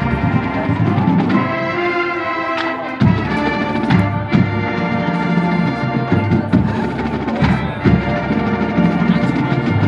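Marching band playing, brass holding sustained chords over drumline percussion.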